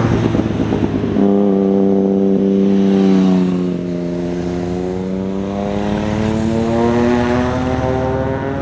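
Motorcycle engine running close by as the bike rounds a hairpin bend. A rush of road noise in the first second gives way to a strong, even engine note that sags slightly in pitch and then rises steadily from about five seconds in as the bike accelerates out of the curve.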